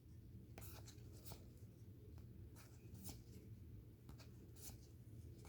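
Faint rustling and soft irregular ticks of football trading cards and their pack being handled, over low room hum.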